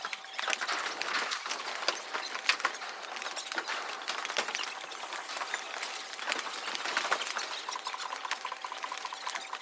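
Platform tennis in play: scattered sharp clicks and scuffs from paddle strikes and footwork on the court, over a steady hiss, with one louder crack about two and a half seconds in.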